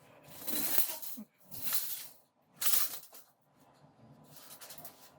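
Packaging being handled: three short rustling hisses, roughly a second apart, followed by faint rustling.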